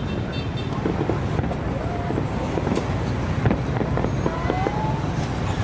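Fireworks display: a steady low rumble of bursting shells with many sharp bangs and crackles, and wind on the microphone. A few short whistling tones, one rising, come about two seconds in and near the end.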